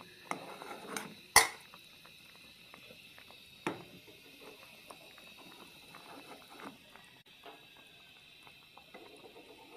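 Strawberry jam simmering in a steel pot with a faint crackle of bubbles, while a spoon clinks twice against steel as the foam is skimmed off. The louder clink comes about a second and a half in.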